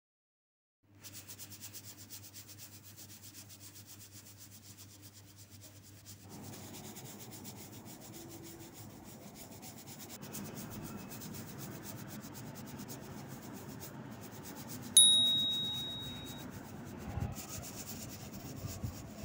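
Soft brush rubbing and sweeping over gold leaf on a painted board, a steady scrubbing rustle that grows fuller partway through. About fifteen seconds in, a single sharp ding rings out and fades over a second or so.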